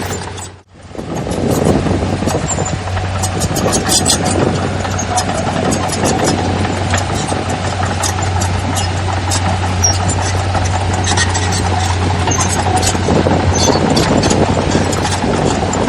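Heavy diesel earthmoving machinery running steadily, with frequent short clanks and rattles over the engine. The sound drops out briefly about half a second in, then comes back.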